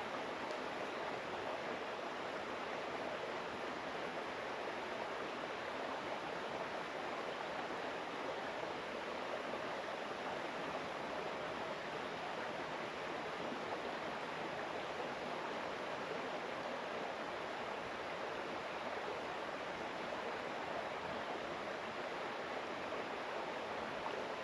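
Flowing water rushing steadily, an even hiss with no breaks or separate splashes.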